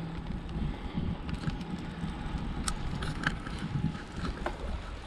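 Wind rumbling on the microphone during a bicycle ride on a paved street, with road noise under it and a few light clicks and rattles, the sharpest about three seconds in.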